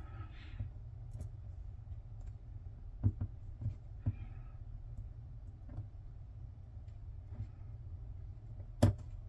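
Scattered small metallic clicks and taps of lock pins and a small tool being worked out of a Paclock 90A-Pro padlock core, a few close together in the middle and the sharpest tap near the end, over a low steady hum.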